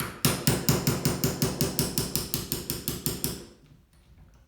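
Hammer tapping rapidly on a tube-fed semi-auto shotgun to drive out its two small retaining pins during disassembly. There are about twenty quick metallic strikes, some six a second, growing fainter and stopping about three and a half seconds in.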